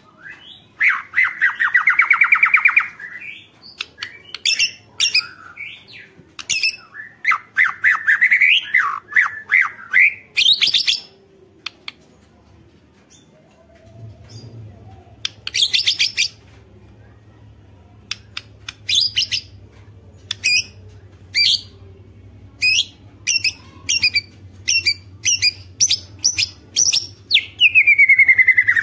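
White-rumped shama (murai batu) in full song: quick runs of sharp rattling 'ketrek' calls mixed with loud whistled and buzzy phrases, one ending in a long falling whistle near the end. This is the kind of full-song recording used as a lure to prompt other shamas to sing. A faint low hum comes in about halfway.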